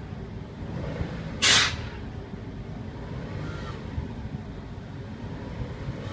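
2008 Subaru WRX's turbocharged flat-four engine running with a steady low rumble, broken about a second and a half in by a short, loud burst of hissing air.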